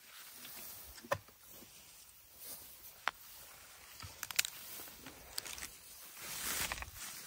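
Tall dry grass rustling and crackling, with a few sharp clicks and snaps of stems, a cluster of them about four seconds in, and a louder stretch of rustling near the end.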